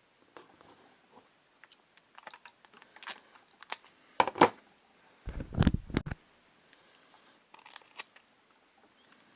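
Irregular small clicks and handling noises. A louder cluster of clicks comes about four seconds in, and just after it a heavier bump with a low rumble lasting under a second.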